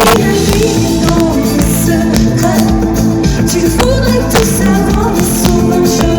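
Live rock band with a female lead singer, heard loud and distorted through a crowd recording. Drums, guitar and bass keep up a steady beat under the singing.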